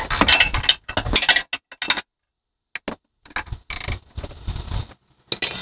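Hand wrench clinking and clattering on the top mount nut of a front shock absorber as it is tightened, in irregular bursts with a short pause about two seconds in.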